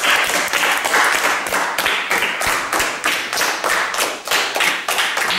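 A group of children applauding, many quick hand claps overlapping into a dense, steady patter.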